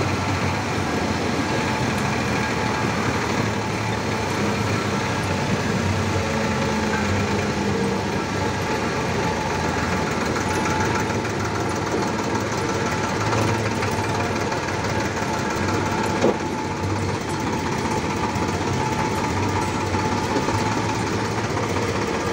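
Escort tractor's diesel engine running steadily, heard close to its upright exhaust stack from the driver's seat.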